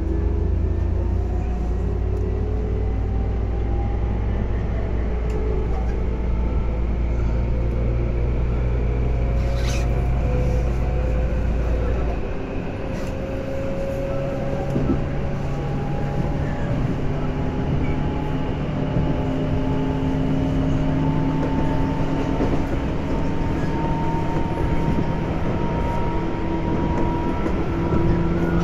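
Running sound inside a Tobu 10030 series electric train as it accelerates: the traction motor and gear whine climbs steadily in pitch over the rumble of wheels on rail. A low hum drops away about twelve seconds in, and there is one sharp click just before that.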